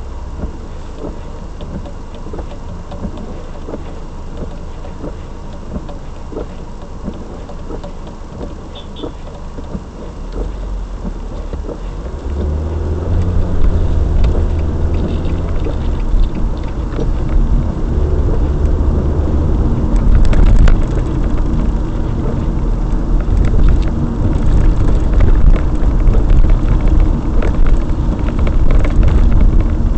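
Car driving noise picked up by a dash cam: a steady low engine and road rumble while stopped, which grows much louder about ten seconds in as the car pulls away. It carries on as a loud rumble with crackling tyre noise while driving.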